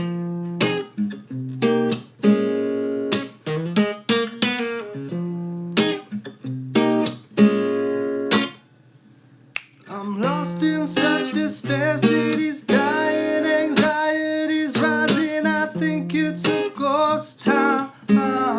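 Acoustic guitar playing a picked melody, with a short break about eight and a half seconds in. When it resumes it is joined by a wordless, wavering vocal line.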